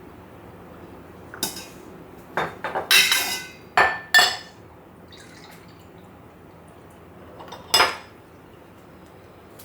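Kitchenware being handled: a series of clinks and clatters of dishes and utensils, busiest about three to four seconds in, with one more sharp clink near the end.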